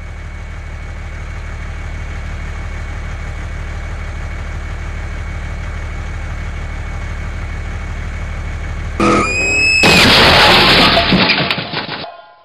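A truck engine runs steadily with a low, pulsing rumble that slowly grows louder. About nine seconds in, a short sweeping tone and then a loud, noisy burst take over, fading out quickly near the end.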